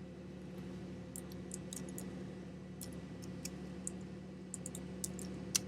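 Light, irregular clicks of a computer mouse and keyboard over a steady low electrical hum, as a web page is searched. A sharper click comes near the end.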